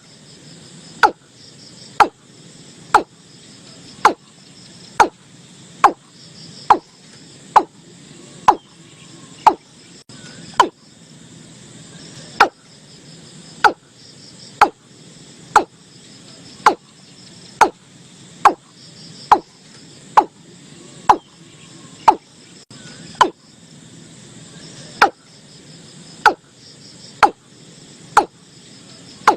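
Watercock calling: a long, regular series of short notes about one a second, each dropping quickly in pitch, over a steady background of crickets.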